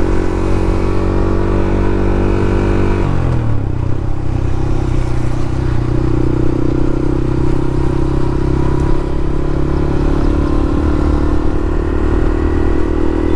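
Motorcycle engine and exhaust running steadily on the move, with a DB killer fitted in the silencer. The engine note drops about three seconds in, then holds steady at the lower pitch.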